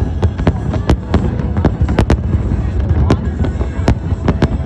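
Fireworks going off in a display: sharp bangs about three to four a second at irregular intervals, over a continuous low rumble.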